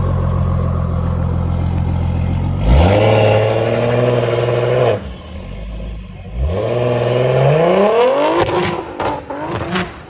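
Tuned BMW G80 M3's twin-turbo S58 inline-six, through a titanium valved exhaust with open dumps, running steadily and then pulled hard twice. The revs shoot up about three seconds in and hold, fall away, then climb again a couple of seconds later, ending in a rapid run of sharp cracks.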